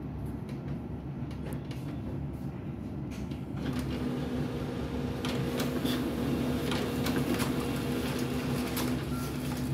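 HP LaserJet Pro M501 laser printer printing a page: a few faint clicks, then about three and a half seconds in its motors start a steady hum with clicks and paper rustle, which runs until near the end.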